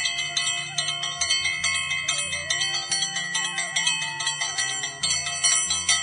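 Temple bells struck rapidly and continuously, several ringing strikes a second, over background devotional music with a wavering melody. The bell ringing cuts off abruptly near the end.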